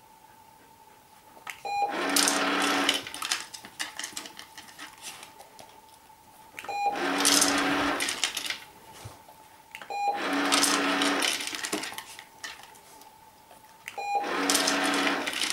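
PetSafe Treat & Train remote treat dispenser going off four times: each time a short beep, then about a second of its motor whirring as the tray turns and treats rattle out into the bowl. A faint steady tone runs underneath.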